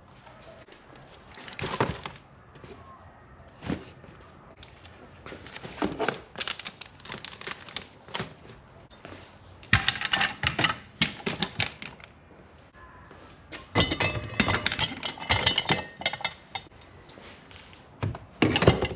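Clicks, clinks and knocks of tools and parts being handled while working on a car engine, in irregular clusters.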